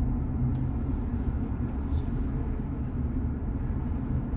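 Steady low road rumble from inside a moving car's cabin: engine and tyre noise.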